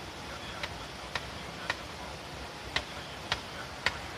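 Wood fire crackling under a frying pan: a steady hiss with six sharp pops, in two runs of three about half a second apart.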